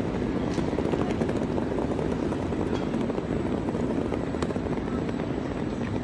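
Wheels of a rolling suitcase running over stone floor tiles: a steady low noise, with a few sharp clicks.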